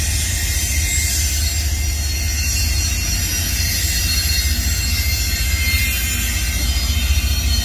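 Double-stack intermodal freight train rolling past: a steady low rumble with a high hiss and faint squeal from the wheels on the rails.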